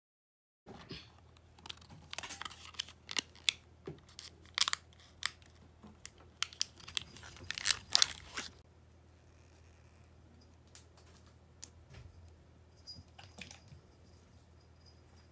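Plastic packaging being torn open and crinkled by hand: a dense run of sharp crackles and rips for about eight seconds, then a few faint clicks.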